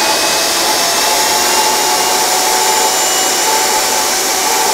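RIDGID R45171 10-inch compact table saw with a 15-amp motor, its blade spinning freely with no wood in the cut. The soft start's rising whine levels off in the first second or two into a steady high whine at full speed.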